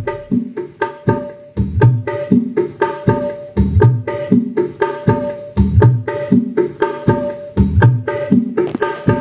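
Recorded music with a steady, fast drum beat and deep bass hits, played through loudspeakers driven by a newly built OCL Hi-Fi class AB amplifier kit with three sets of final transistors, as a sound check.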